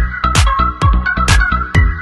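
Background electronic music with a steady dance beat, about two beats a second, and a short repeating melody.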